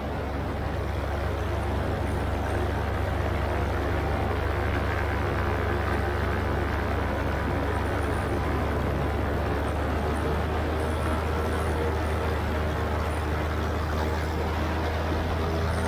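Paramotor engine and propeller droning steadily in flight, a constant low hum with rushing air noise over it.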